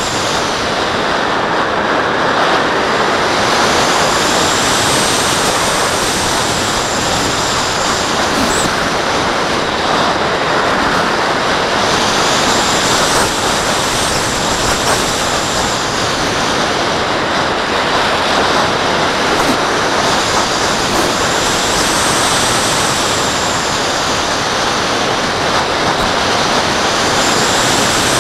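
Wind rushing over a camera mounted on an RC glider in flight, a loud steady hiss. Its hissing top swells and eases off every several seconds as the glider banks round.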